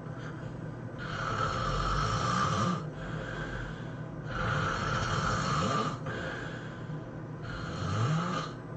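A person snoring: three long, loud snores about three seconds apart, each rising in pitch toward its end.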